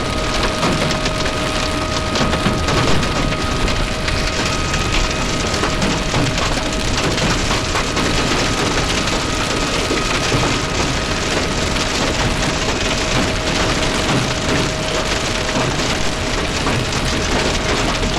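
Heavy storm rain pelting a semi-truck, a dense steady drumming and crackling, with a faint steady tone running under it.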